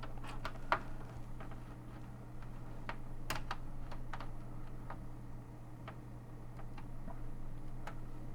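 Scattered, irregular light clicks and taps of hand work on a Commodore 128's case and screws as it is taken apart.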